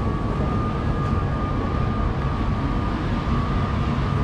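Steady low rumble of city street noise, with a faint steady high tone running through it.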